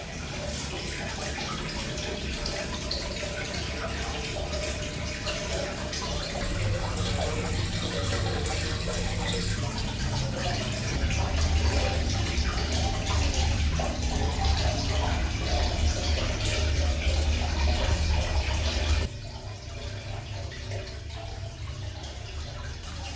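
Water running steadily from a tap into a bath. It gets fuller and lower-pitched partway through, then drops off sharply about nineteen seconds in.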